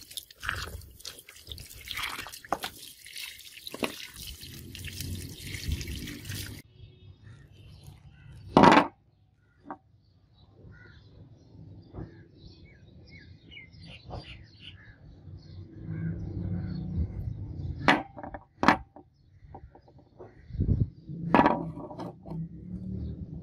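Water splashing as a cast metal piece is rinsed by hand, stopping about six and a half seconds in. Then scattered clicks and a few sharp knocks as small cast metal pieces are handled and set down on a wooden table.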